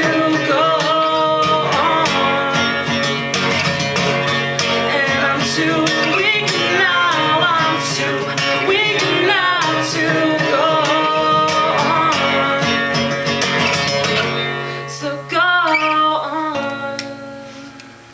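A song with a singing voice over acoustic guitar, fading out near the end.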